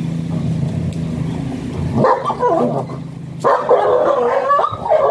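A German Shepherd whining and yelping in high, wavering cries, starting about two seconds in and growing louder after a short pause. A steady engine hum runs underneath at first.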